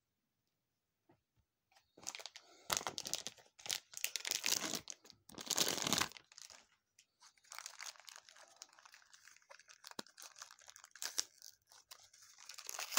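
Gashapon blind packaging, paper and foil, being crinkled and torn open by hand in irregular bursts after about two seconds of silence. It is loudest in the first half, with lighter crackling and clicks after that.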